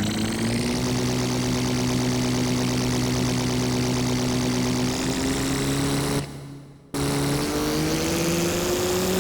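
Synthesized sci-fi spaceship engine drone: a distorted wavetable synth tone with a lower octave and reverb, held as a steady hum. It drops out and fades away about six seconds in, starts again abruptly, then slowly rises in pitch.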